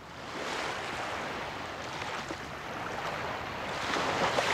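Ocean waves washing in: a steady rushing surf that swells and eases, with a bigger wave breaking near the end.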